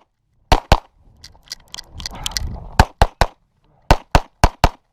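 Competition pistol shots fired in quick pairs during a practical shooting stage run: two about half a second in, then a pause of about two seconds with faint clicks, then a rapid string of about seven more shots.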